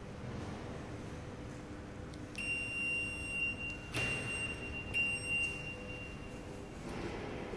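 A steady, high electronic warning tone sounds about two seconds in. It is broken briefly twice and stops near the end, with a sharp click about four seconds in, just as the Ferrari 612 Scaglietti's lights come on.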